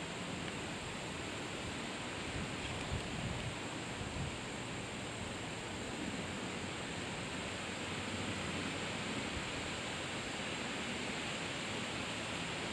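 Steady rushing noise of flowing creek water, with a few soft low knocks a few seconds in.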